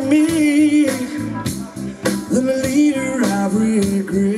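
Blues-rock band playing live: a male lead voice sings two held phrases with a wavering pitch over electric guitar, bass and a steady drum beat.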